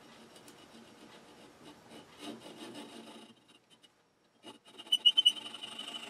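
Flush cut saw cutting through a small piece of wood in a series of rasping strokes. The sawing pauses briefly about three seconds in, then resumes louder, with a thin high ringing note in the strokes.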